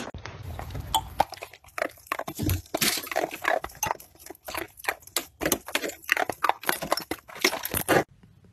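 A dog biting and gnawing: a quick, irregular run of crunches and snaps that cuts off suddenly near the end.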